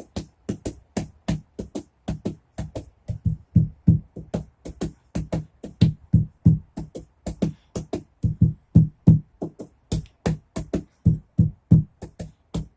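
Drumming on a bench in place of a cajon: a fast, steady rhythm of deep thumps mixed with sharper slaps, about four to five strokes a second.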